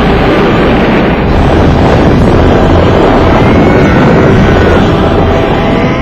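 A loud, steady rushing noise with a deep rumble underneath, a sound effect for a glowing energy blast.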